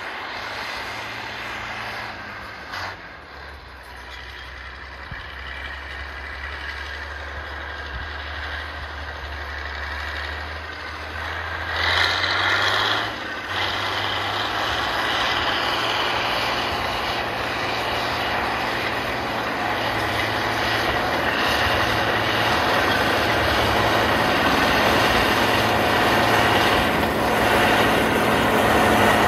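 FiatAllis FA 200 crawler tractor's diesel engine working steadily while pulling a disc harrow, growing louder as it approaches. There is a brief louder surge about twelve seconds in.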